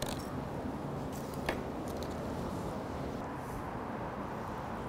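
Steady background hum with a few faint, short clicks and taps, one a little after a second in, from a filleting knife working along a red snapper's bones on a wooden cutting board.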